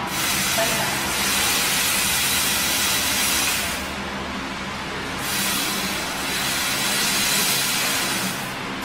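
CO2 laser cutter cutting 1 mm stainless steel sheet: a loud hiss of assist gas from the cutting nozzle during each cut, over a steady low hum of the machine. The hiss cuts off about four seconds in, starts again about a second later for the next cut, and stops near the end.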